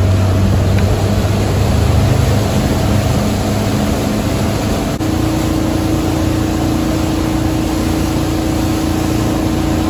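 Wake boat under way: its inboard engine drones beneath the loud rush of the churning wake. A steady higher hum comes in about halfway through.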